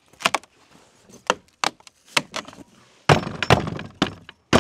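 Frozen wooden shed door being yanked and kicked loose: a series of wooden knocks and bangs, sparse at first, then louder and closer together for the last second and a half.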